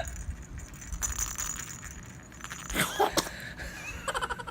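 A baby sneezing once, sharply, about three seconds in, over a steady low background hum.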